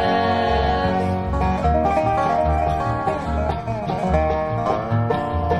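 Bluegrass band playing an instrumental passage after a sung chorus: banjo picking with acoustic guitar over upright bass notes about two a second, with a long held note fading out in the first second.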